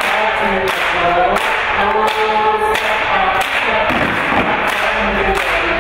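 Step dancers' stomps and hand claps striking a steady beat, about three every two seconds, with voices singing over them.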